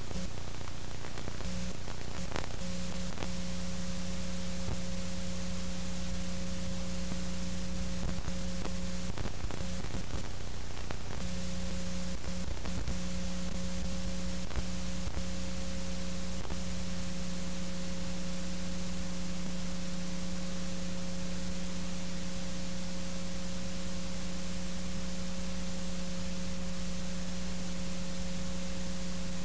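Steady hiss with a constant electrical hum and no other sound, with scattered clicks and crackles through the first half.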